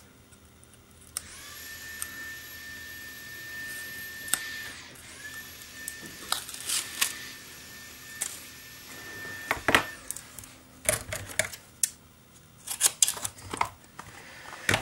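Crackling, clicking and tapping of a thin aluminium litho-plate panel and its tape backing being handled and pressed down. These sounds come thickest in the second half, over a steady hiss with a faint high whine that runs in two stretches of several seconds each.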